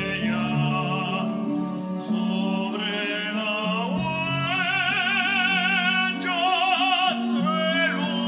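Operatic singing with wide vibrato over an instrumental accompaniment, the voice holding long high notes in the second half.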